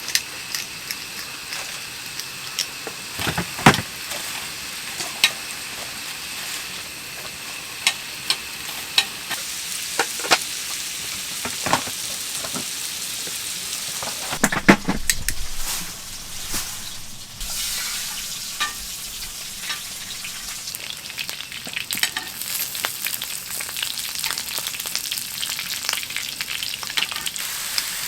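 Food frying in a pan: a steady sizzle with crackles and scattered sharp clicks, the loudest of them about four seconds in and again around fifteen seconds.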